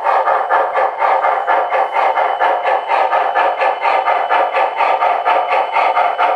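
Proto-Sound 2 electronic steam sound of an MTH Premier O-gauge Shay geared locomotive: a rapid, even chuffing of about five chuffs a second as the model runs along the track.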